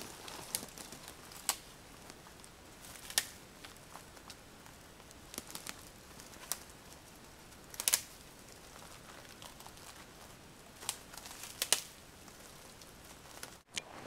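Small dead conifer twigs snapping as they are broken off the tree by hand, with the dry red needles rustling. The snaps come as scattered sharp cracks, the loudest about 3 and 8 seconds in.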